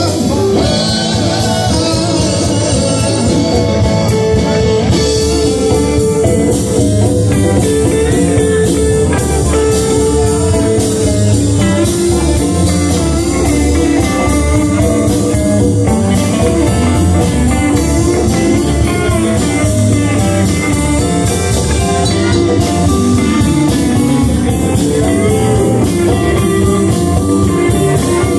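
Live band playing amplified music on electric guitars, bass and drum kit, with congas beaten by hand.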